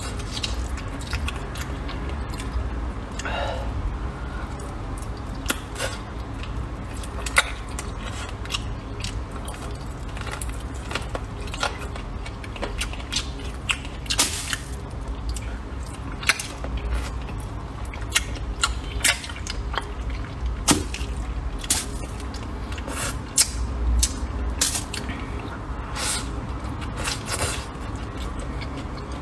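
Close-up wet chewing, with sticky lip smacks and mouth clicks, as gelatinous stewed pig's trotter and noodles are eaten. The clicks come irregularly, every second or so, over a low steady hum.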